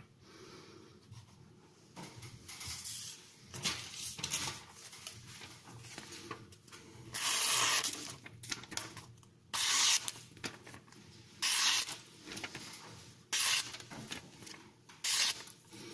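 A steel knife blade stroked across the fine side of a Norton India oilstone, a series of scraping, hissing strokes while the edge is convexed. The strokes are faint at first; the longest and loudest comes about seven seconds in, then shorter strokes follow every couple of seconds.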